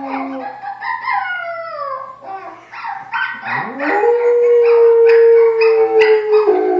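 Estrela mountain dog howling: a shorter falling howl in the first two seconds, then a long howl that rises, holds steady and falls away near the end.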